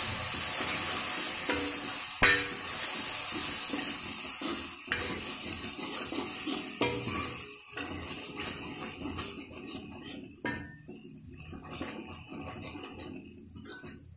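Steel ladle stirring and scraping spiced khipoli and curd masala in a metal kadai, with a few sharp clinks of the ladle against the pan. The frying sizzle fades gradually as the curd is mixed into the hot oil.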